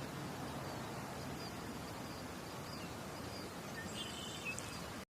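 Steady outdoor background noise with a few faint, scattered bird chirps, cutting off abruptly near the end.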